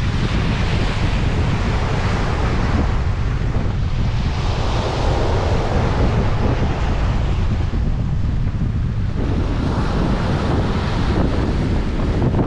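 Sea waves washing in, the hiss swelling and fading every few seconds, over a steady low rumble of wind buffeting the microphone.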